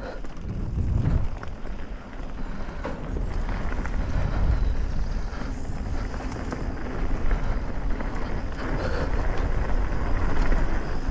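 Mountain bike riding down a dirt flow trail: wind rumbling on the microphone over tyre noise, with a few light clicks and rattles. It gets louder about four seconds in as the bike picks up speed.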